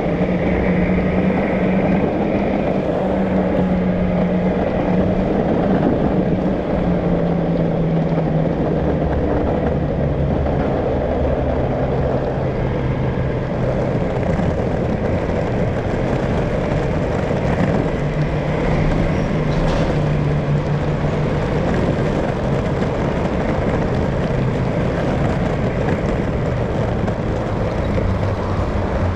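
Motor vehicle traffic running steadily: a low engine hum that drifts slowly in pitch over a constant road rumble.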